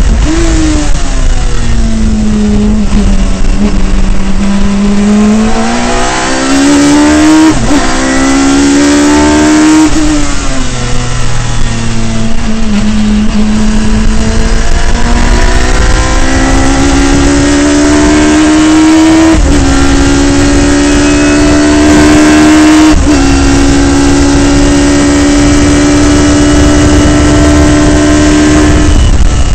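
Radical SR3 race car's motorcycle-derived four-cylinder engine heard from the cockpit at racing speed. The revs fall twice as it slows for corners and climb again under acceleration, broken by three quick upshifts that cut the pitch sharply.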